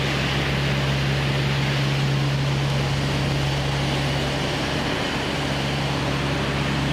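A steady low mechanical hum at a constant pitch, with no change in level, over a wash of street noise.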